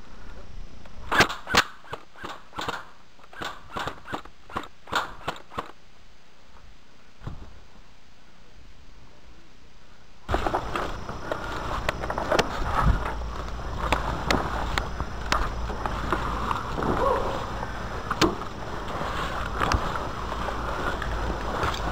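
Airsoft gun firing about a dozen quick single shots over the first few seconds. From about ten seconds in, steady rustling and handling noise with a low rumble and scattered knocks, as gear brushes through tall weeds.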